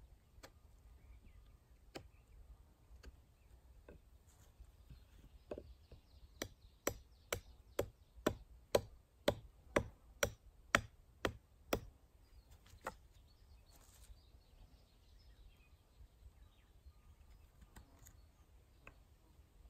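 A run of about a dozen sharp chopping strikes into wood, roughly two a second, with a few single knocks before and after: hand-tool woodworking with an axe or knife.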